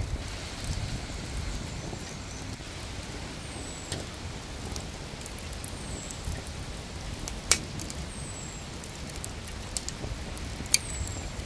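Grilled, sauce-glazed chicken thigh being pulled and torn apart by hand, with a few sharp crackles from the skin and meat. Under it runs a steady low wind rumble, and a short high falling whistle sounds every couple of seconds.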